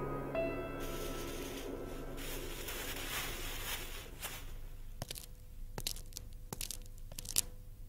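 Clear plastic sheeting rustling and crinkling as it is handled, an even hiss at first and then a run of sharp separate crackles in the second half. The last note of the music dies away at the very start.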